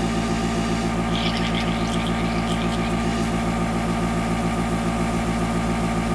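Small airbrush compressor running steadily with an even, fast-pulsing motor hum, with a brief higher hiss of air about a second in.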